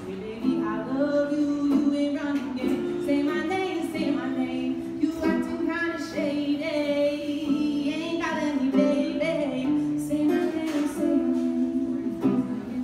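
A woman singing to acoustic guitar accompaniment, live, holding and changing notes.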